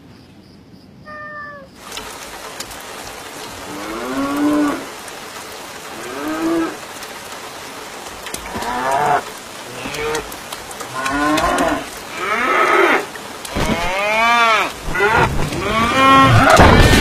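Cows mooing again and again, a drawn-out call every second or two that grows louder toward the end, over steady rain. A short high squeak comes about a second in, before the rain starts.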